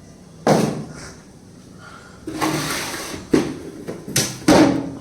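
Kitchen items being handled and put away: about four sharp knocks and bangs, with a longer rustle in the middle, like a container or drawer knocked shut.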